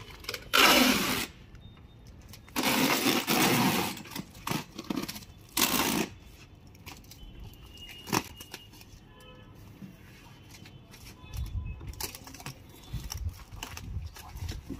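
Wide packing tape being pulled off the roll in three loud screeching rips, the middle one the longest, followed by softer rustles and clicks of tape being pressed down.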